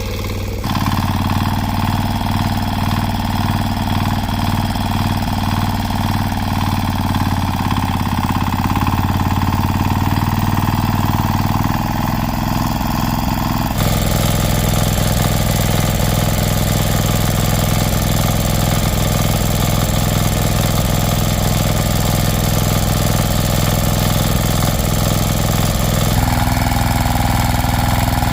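An engine running steadily with an even, fast beat. Its sound changes abruptly about a second in, again about halfway through, and near the end.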